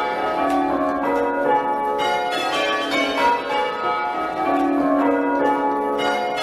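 A ring of six church bells being rung full-circle in change ringing, in an even, continuous sequence of strokes. The bells are half-muffled, so a clear round alternates with a duller, muffled round.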